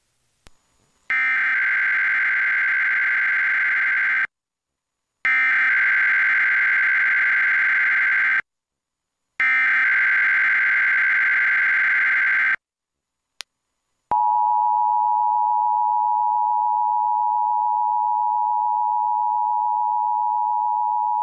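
Emergency Alert System test signal: three bursts of SAME header data, each a buzzing digital burst about three seconds long with a second of silence between. About 14 seconds in, the steady two-tone EAS attention signal starts and holds.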